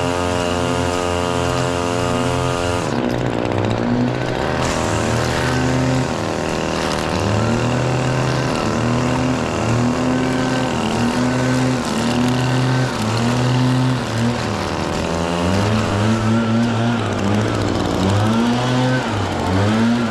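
ECHO SRM-2620T two-stroke string trimmer engine running, held steady at high speed for about the first three seconds, then throttled up and down over and over, its pitch rising and falling about once a second.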